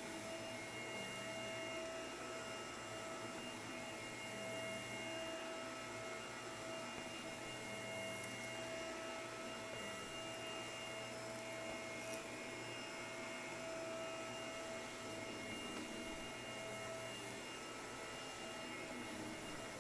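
Shark vacuum cleaner running steadily, its motor giving a constant whine with several high tones over a hum.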